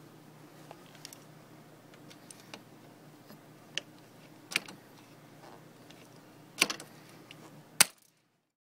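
Hand pop-rivet gun setting a rivet through the torsion assembly's end cap into the aluminium awning roller tube: a series of sharp metallic clicks as the handles are squeezed, the loudest two near the end.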